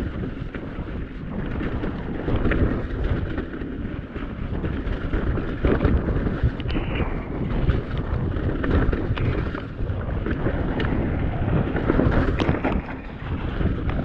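Wind buffeting an action camera's microphone during a fast mountain-bike descent, with frequent rattles and knocks as the bike's tyres hit roots and bumps on the trail.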